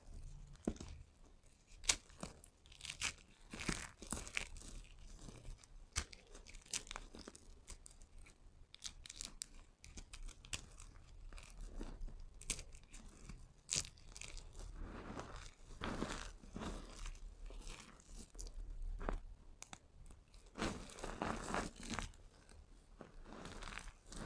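Dry, crunchy soap shavings and small soap cubes being crushed and rubbed between the fingers: irregular sharp crackles and crunches, with longer grainy crunching runs about two-thirds of the way through and again near the end.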